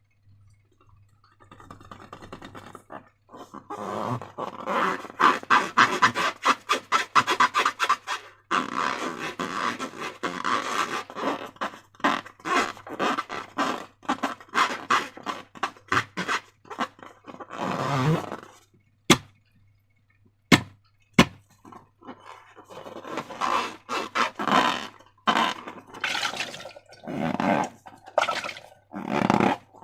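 Slime being squished and kneaded, a fast wet crackling and squelching in long stretches with short pauses. Three sharp clicks stand out about two-thirds of the way through.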